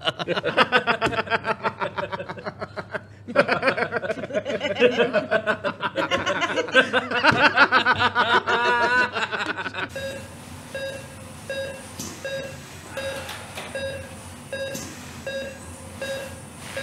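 Several people laughing hard together for about ten seconds. Then, after a sudden cut, a patient monitor beeps steadily in an operating room, about one and a half beeps a second.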